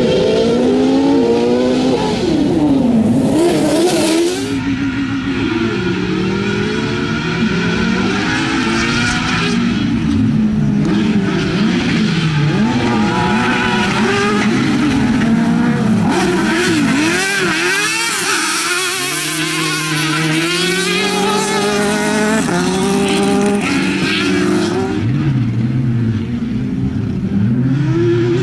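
Engines of two off-road racing buggies revving hard, their pitch repeatedly climbing and dropping as they accelerate, shift and brake.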